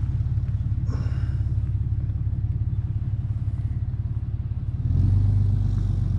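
An engine running steadily at idle, a low pulsing rumble that gets louder about five seconds in.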